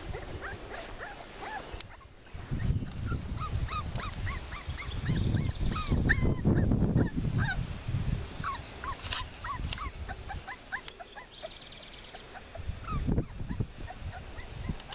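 Young puppies yipping and whimpering in many short, high squeaks, with a low rumbling noise that is loudest in the middle.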